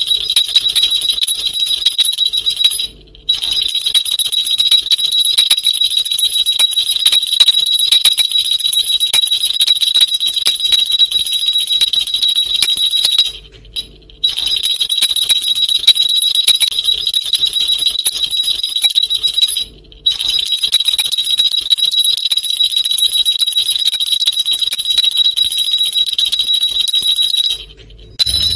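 Large round single-cut brass ghungroo jingle bells shaken together in a bunch, jingling continuously with a bright, high ring. The jingling comes in long spells broken by a few brief pauses.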